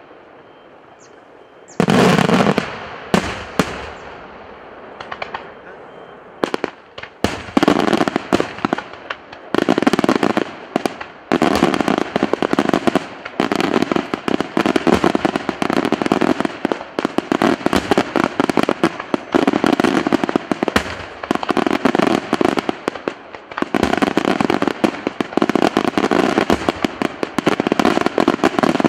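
Aerial fireworks bursting overhead: one loud bang about two seconds in, a few scattered reports, then from about seven seconds a dense, rapid barrage of bangs and crackling that keeps going.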